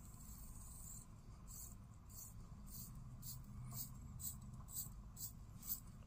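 Crown of a Victorinox automatic chronograph with a Valjoux 7750-based movement being hand-wound. The winding ratchet gives faint, regular raspy clicks about twice a second as the mainspring is wound.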